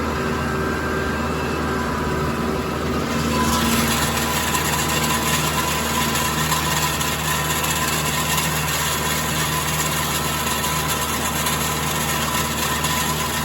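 A vehicle engine running steadily, its sound growing a little fuller and louder about three seconds in.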